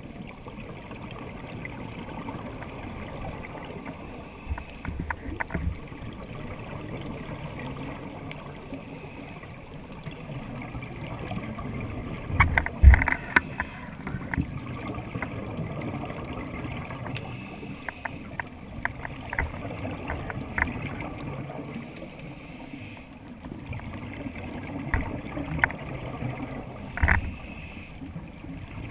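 Underwater sound heard through a diver's camera: scuba regulator breathing, a hissing rush of exhaled bubbles every four to five seconds over a steady water hiss. Scattered sharp clicks and knocks run through it, loudest in a cluster about twelve seconds in.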